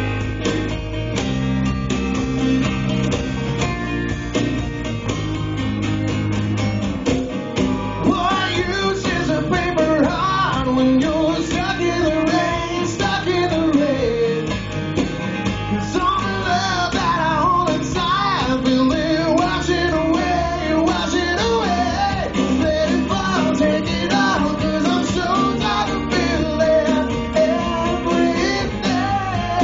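Live acoustic band playing: strummed acoustic guitars over a bass guitar, with a sung melody coming in about eight seconds in.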